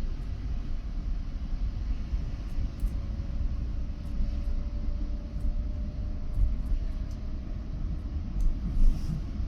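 Steady low rumble of a vehicle in slow traffic, with a faint hum that slowly rises in pitch through the middle.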